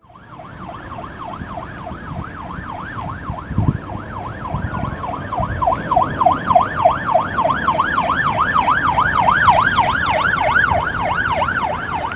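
Ambulance siren in a fast yelp, rising and falling about three times a second and growing louder as the ambulances approach, over engine and road rumble.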